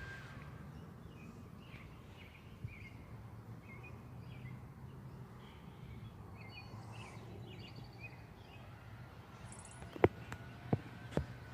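Small backyard birds chirping and twittering on and off over a steady low background hum. Three or four sharp clicks come near the end.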